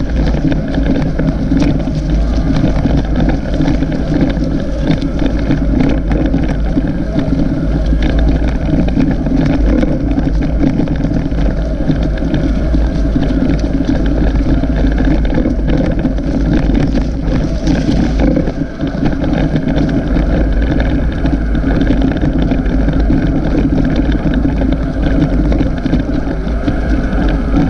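Wind buffeting the microphone over the rumble and rattle of a bicycle riding on a rough dirt track, steady and loud throughout.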